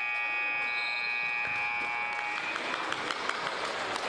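Gym scoreboard horn sounding a steady buzz as the game clock runs out, marking the end of the third quarter. It stops about two and a half seconds in, leaving a noisy gym with short knocks.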